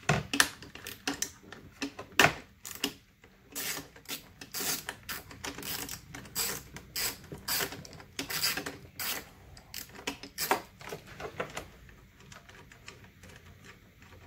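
Socket ratchet clicking in quick runs as it backs out a 10 mm fastener, with a sharp knock about two seconds in. The clicking thins out near the end.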